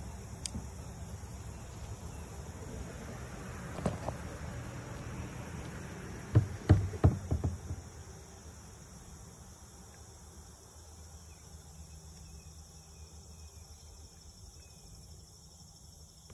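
Crickets and other insects chirring steadily as a high, even chorus. A single knock comes about four seconds in, then a quick cluster of louder knocks a couple of seconds later, with a low rumble that fades out around the middle.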